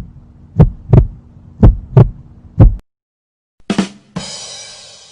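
Heartbeat sound effect: deep double thumps, lub-dub, about once a second over a low hum, stopping about three seconds in. Then a short hit and a hissing whoosh that fades away.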